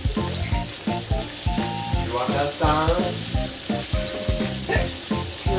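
Pork belly rolls sizzling as they fry in oil in a pan over medium heat, over background music with a steady beat.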